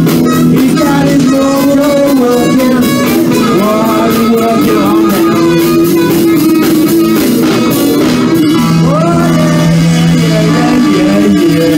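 Live blues band playing loud and steady, with electric guitars, drums and a saxophone, and long held and sliding melody notes over the band.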